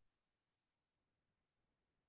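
Near silence: a pause in a man's talk, with no sound.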